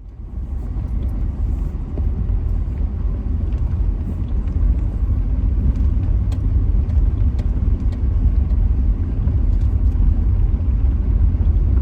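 Steady low rumble of a Subaru on the move, heard from inside the cabin, with a few faint rattles.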